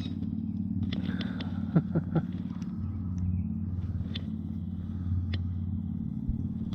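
A steady low hum from a running motor, with three short sharp clicks about two seconds in.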